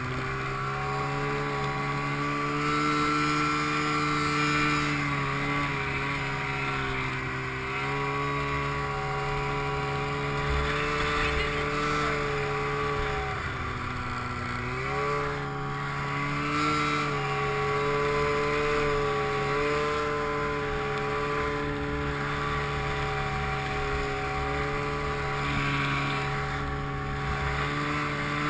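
Snowmobile engine running steadily under throttle. Its pitch sags as the throttle eases off about thirteen seconds in, then climbs back up about fifteen seconds in.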